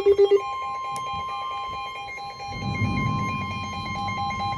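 Electronic emergency alert tones. A loud, fast-pulsing beep cuts off about half a second in, and a steady high alarm tone then holds: the NOAA Weather Radio warning alarm that comes before a warning message. Under it a second electronic tone pulses rapidly, with a low rumble around the middle.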